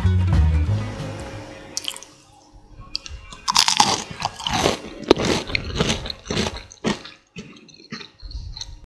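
Crisp fried churro being bitten and chewed: a run of irregular crunches starting about three seconds in, after music fades out.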